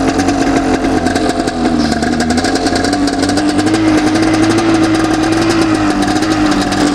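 Snowmobile engine idling steadily, its pitch rising slightly midway and settling back. It sounds a little rough because the exhaust is only loosely held on by a couple of its springs.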